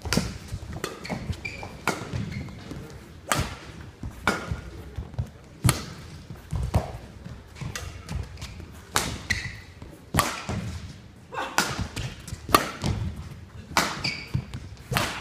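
Badminton rally: rackets striking the shuttlecock back and forth, sharp hits about once a second, mixed with the players' footfalls on the court.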